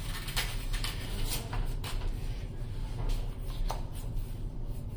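Trading cards being handled and flipped through by hand: a scatter of light clicks and rustles at an uneven pace.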